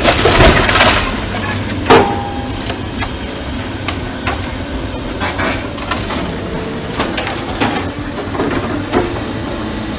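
Excavator demolishing a building: loud crunching and breaking of debris in the first second, a sharp crack about two seconds in, then scattered smaller cracks and knocks over the machine's steady low running.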